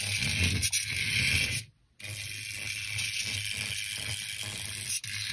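Radio Shack ZipZap SE micro RC car's tiny electric motor and gear train whirring as it drives across a rubber mat. The sound cuts out briefly a little under two seconds in, then carries on steadily.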